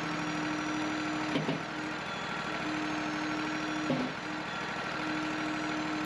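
Wood-Mizer LT40 sawmill's engine idling steadily, with a couple of faint knocks about a second and a half in and about four seconds in.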